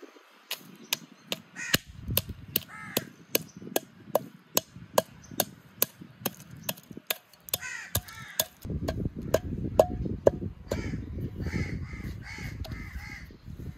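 A wooden pestle pounding whole spices in a glazed clay bowl: sharp, regular knocks at about two and a half a second. From about nine seconds the knocks give way to a continuous rough grinding and scraping as the spices are crushed to a powder.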